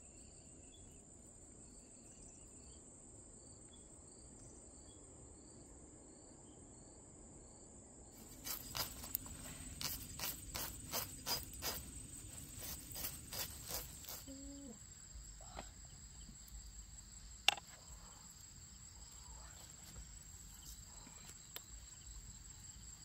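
Insects trilling steadily at a high pitch, with a second insect pulsing below it for the first third. In the middle comes a run of sharp clicks, about three a second for some six seconds, and later one single sharp click.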